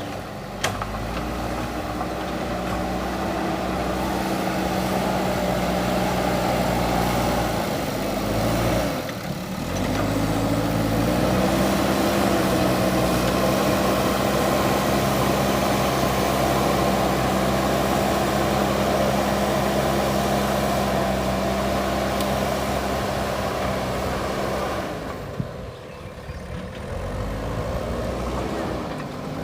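JCB backhoe loader's diesel engine working under load, its revs climbing and holding high. The revs drop briefly about nine seconds in, build again a second later, and fall back near the end before picking up once more.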